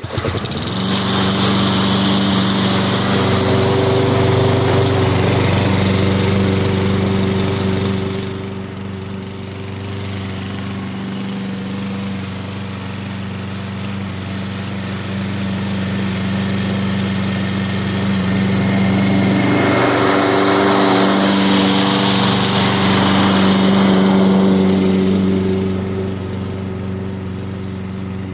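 Yardmax 201cc walk-behind lawn mower engine starting up and running at a steady speed while it cuts grass. It grows louder and fainter as the mower is pushed nearer and farther away.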